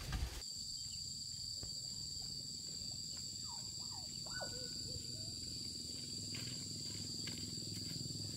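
Insects shrilling in a steady high two-tone drone over a low continuous rumble, with a few short rising and falling chirps around the middle.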